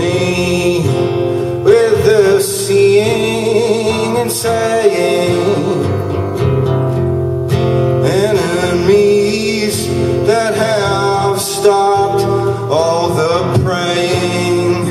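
Acoustic guitar strummed in a live solo song, with a sung vocal line over it.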